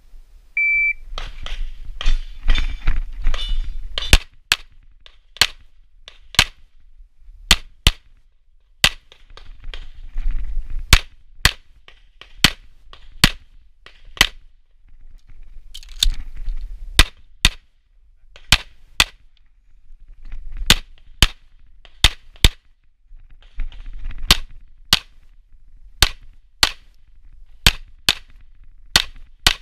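Shot timer's start beep, then a string of semi-automatic pistol shots, mostly in quick pairs, with pauses of a second or two between strings where only softer movement noise is heard.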